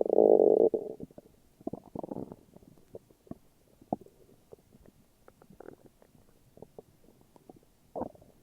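Human stomach growling: a loud gurgling rumble in the first second, then a smaller gurgle about two seconds in, with scattered short pops and gurgles through the rest.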